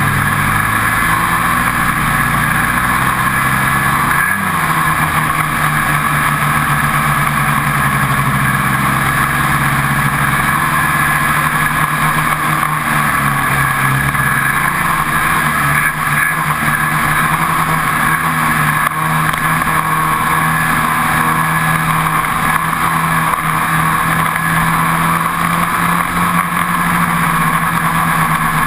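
Ski-Doo 800 two-stroke snowmobile running at speed on packed snow, heard from on board: a steady loud engine note that rises and falls a little with the throttle, with one quick rise about four seconds in.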